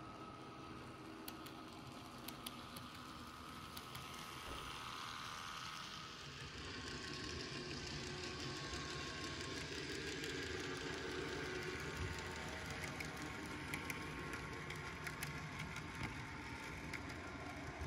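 N gauge model diesel multiple unit running along the track: a steady mechanical running noise with light clicks, louder from about six seconds in.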